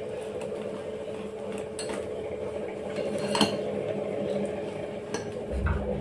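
A spoon stirring cake batter in a steel bowl, scraping round the sides with a few sharper clinks against the metal.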